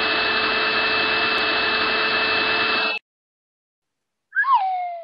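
Vacuum cleaner sound effect running with a steady whine, cut off abruptly about three seconds in. Near the end a short loud vocal sound slides down and back up in pitch.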